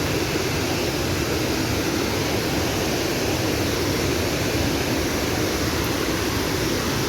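Steady rushing of a large waterfall, Abbey Falls, with no breaks or changes.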